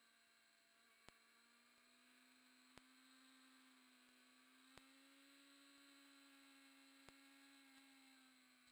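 Near silence: a faint steady hum with a soft click every couple of seconds. The recording carries no real sound, so no motorcycle engine is heard.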